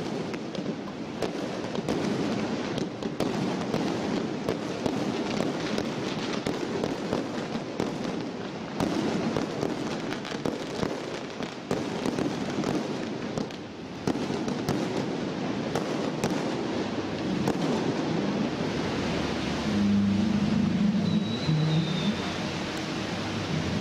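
Strings of firecrackers crackling in a dense, unbroken rattle. Near the end a low tone comes in, stepping up and down in pitch.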